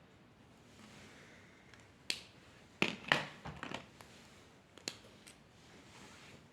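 Several sharp clicks and taps, the loudest about three seconds in, between soft scratches of a pen drawing on paper.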